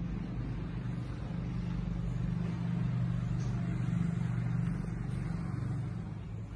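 A road vehicle's engine drones past, growing louder to a peak about four seconds in and then fading.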